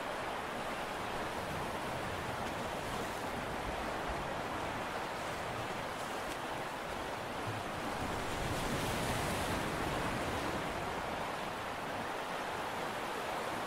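Steady rushing of sea water and wind at the harbour, with no distinct engine note, swelling a little about eight seconds in and then easing back.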